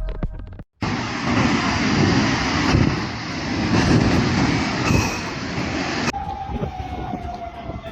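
A loud, steady rumbling noise with rattles for about five seconds that cuts off abruptly, followed by a siren wailing on one tone that slowly falls in pitch.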